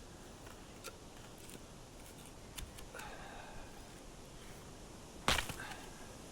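Wood fire crackling: scattered small pops and ticks, with one loud sharp crack about five seconds in.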